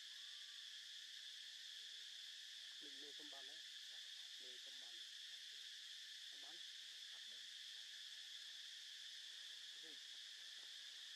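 Steady high-pitched chorus of insects droning in the trees, with a few faint, short distant vocal sounds about three, four and a half, six and a half and ten seconds in.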